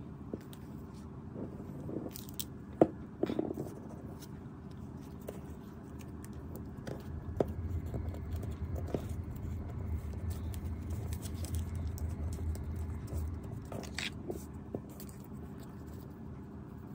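Hands handling and pressing paper collage pieces on a desk while dabbing on liquid glue from a bottle: soft paper rustles with small taps and clicks. A low rumble runs through the middle for several seconds.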